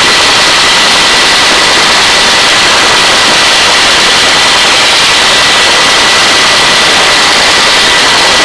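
Hovering helicopter's engine and rotor noise, a loud steady rush with a thin high whine running through it.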